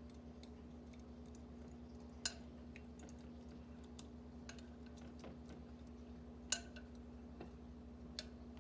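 Faint clinks and ticks of glass kitchenware as hot blueberry jam is transferred from a glass measuring cup into a jar, with two sharper clicks about two seconds and six and a half seconds in, over a steady low hum.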